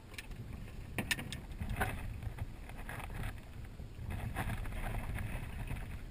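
Wind rumbling on the microphone, with a few sharp knocks and clicks about one and two seconds in as a flathead catfish is handled out of a landing net, and a rustle later on.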